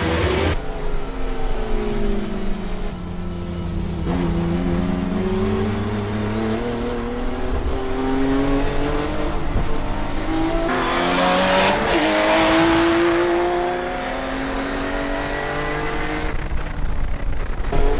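Group A Nissan Skyline GT-R race car's twin-turbo straight-six RB26DETT engine running hard on track. The pitch sags, then climbs steadily, with several breaks at gear changes. About eleven seconds in a louder rush of noise swells and fades.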